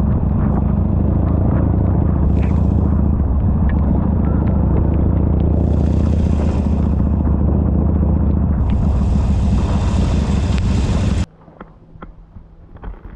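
Motorcycle engine running steadily under way, with three swells of hiss over it; the sound cuts off suddenly near the end.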